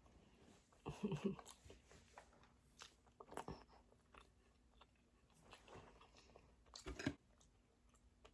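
Chicken wings being chewed and bitten close to the microphone: quiet, wet mouth clicks, with louder bites about a second in, a few seconds in and near the end.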